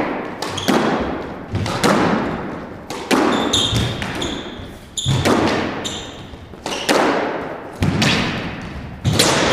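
A squash rally: the ball cracking off rackets and the court walls, sharp hits about once a second, each ringing on in the court's echo.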